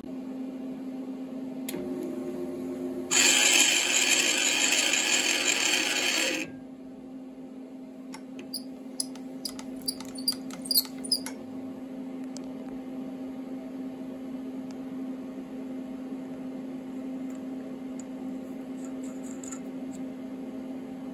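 Small bench mill-lathe humming steadily. Near the start a loud hissing, scraping rush lasts about three seconds, with a low tone rising under it. About halfway through come a dozen or so light, sharp metallic clicks.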